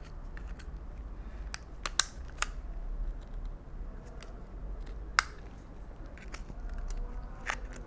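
Scattered light clicks and taps from small tools and parts being handled at a phone repair bench, over a faint low hum.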